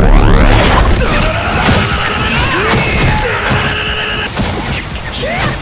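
Anime sound effects over music: a loud low boom with a falling sweep at the start, then a string of crash-like hits and sliding whooshes, with a steady high tone in the middle.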